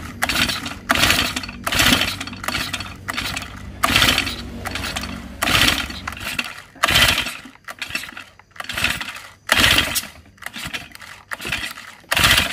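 Honda GX50 four-stroke brush-cutter engine being pull-started again and again with its recoil starter, about ten quick pulls roughly a second apart, each a short rasp of the cord and engine cranking. It never catches: the engine won't start even with a freshly cleaned carburettor, and the owner suspects the valve clearance.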